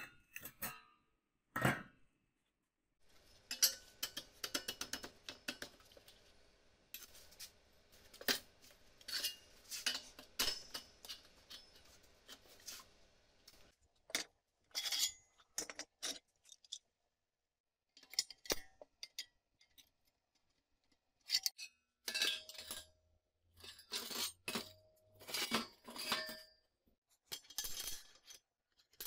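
Steel parts clinking and knocking as a welded square-tube frame and flat steel bars are handled and set down on a metal workbench. From about three seconds in to about halfway there is a stretch of dense crackling and rattling; after that come separate clinks and knocks with short pauses between them.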